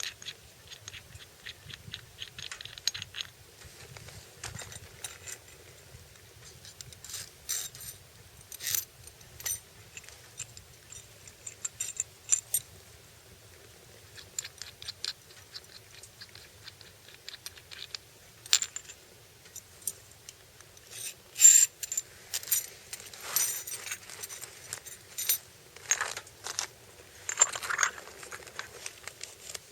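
Small metal parts or tools clinking and rattling as they are handled, in scattered irregular taps, the loudest about two-thirds of the way through.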